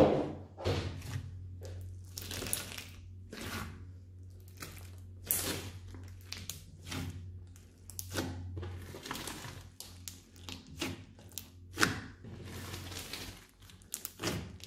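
Hands squeezing and kneading a large mass of mixed slime studded with foam beads: a run of wet squishing and crackling squelches, irregularly spaced, about one or two a second, the loudest right at the start. A low steady hum lies underneath for the first two-thirds.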